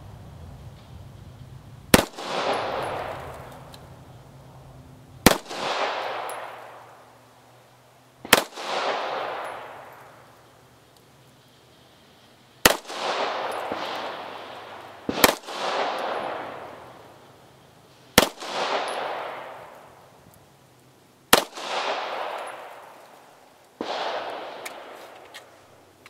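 Walther P1 9mm pistol fired eight times in slow, aimed shots about two to four seconds apart. Each sharp report is followed by an echo that dies away over about a second.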